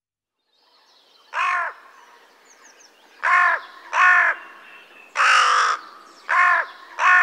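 A crow cawing six times in harsh, irregularly spaced calls, the fourth longer and rougher than the rest, over a faint background hiss.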